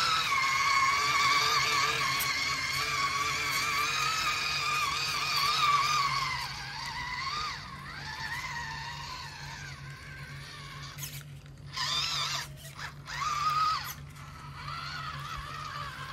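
Electric motor and gearbox whine of a WPL C44 RC Toyota pickup truck driving through a muddy puddle. The high whine wavers with the throttle and drops in pitch about six seconds in, then comes and goes in short spurts with brief gaps.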